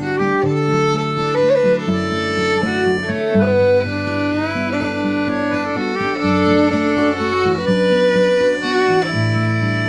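Instrumental background music led by a fiddle playing a melody with sliding notes, over a bass line.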